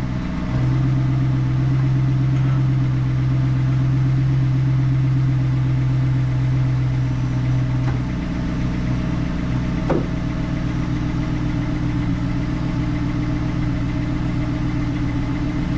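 The 2005 Cadillac XLR's power retractable hardtop running through its cycle: a steady mechanical hum as the trunk lid lifts and the roof panels rise. The hum changes about eight seconds in, and there is a single click around ten seconds.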